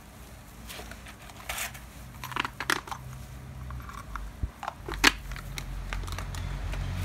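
Scattered metallic clinks and knocks of hand tools and drill parts being handled, with one sharper knock about five seconds in. A faint low hum comes in around the middle.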